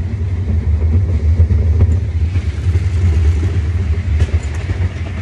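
A loud, steady low rumble while riding a fairground roller coaster.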